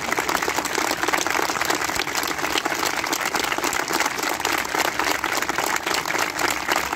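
Large crowd applauding, many hands clapping at once.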